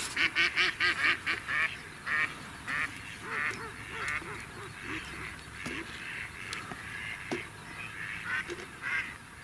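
Mallard hen-style quacking: a fast run of loud quacks in the first second and a half, then more scattered, somewhat quieter quacks through the rest.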